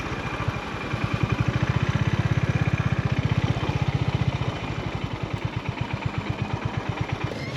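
Honda GB350's air-cooled single-cylinder four-stroke engine running at low revs, a slow, even beat of firing pulses. The beat is strongest for the first few seconds and eases off a little after about four and a half seconds.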